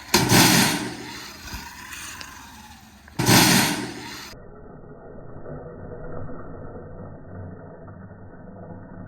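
Sur-Ron electric dirt bike being ridden, with two loud rushes of noise about a second long, the first right at the start and the second about three seconds in. After that the sound turns muffled and dull.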